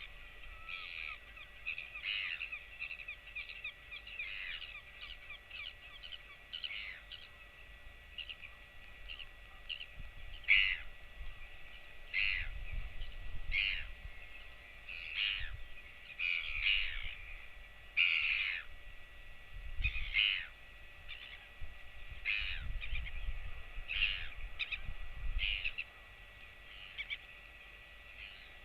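Short, sharp bird calls repeated about once a second, with gusts of wind buffeting the microphone through the second half.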